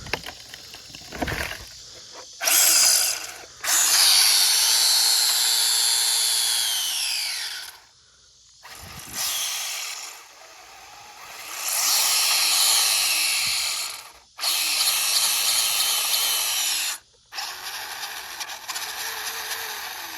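Traxxas 1/16 Slash 4x4 RC truck's electric motor and drivetrain whining under throttle on loose dirt, in about six bursts with short breaks as the throttle is cut and reapplied. About seven seconds in, the whine falls in pitch as the truck slows.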